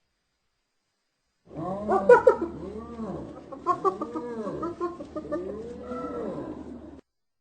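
Spotted hyena laughing: a run of repeated rising-and-falling whooping notes, several a second at the loudest, starting suddenly and cutting off abruptly.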